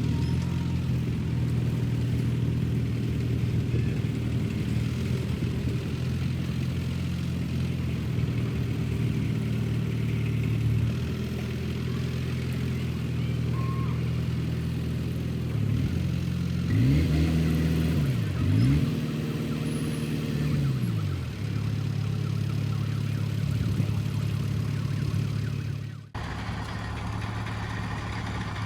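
Heavy-equipment diesel engine running steadily, revved up and down a few times about two thirds of the way through, with a sudden break near the end after which the engine carries on.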